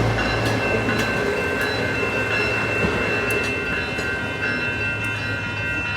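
SMART diesel multiple-unit train (cars 107 and 108) running as it pulls away: a steady low engine hum with several steady high tones over it and a few light clicks.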